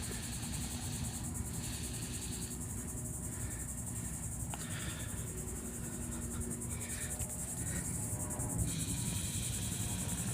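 Insects trilling steadily, a constant high pulsing chirr, over a low background rumble.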